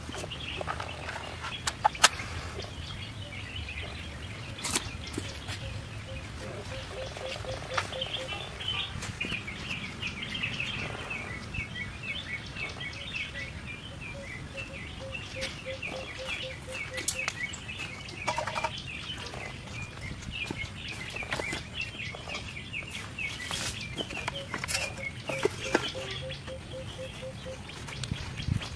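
Birds chirping continuously, with runs of a quick, evenly repeated low call coming and going, and occasional sharp clicks and knocks; the loudest is a sharp crack about two seconds in.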